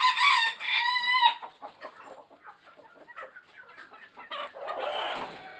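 Chickens calling and clucking in the pens, opening with one loud drawn-out call of about a second, followed by scattered short clucks and a brief noisy burst near the end.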